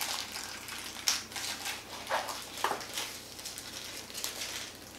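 White packing wrap crinkling and rustling in the hands as spare drone propellers are unwrapped, with a few sharper crackles.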